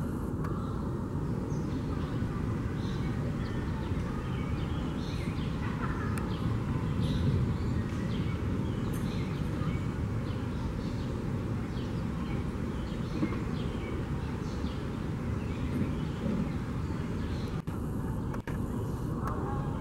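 Outdoor city-park ambience: a steady low rumble with many short, high chirps scattered through it.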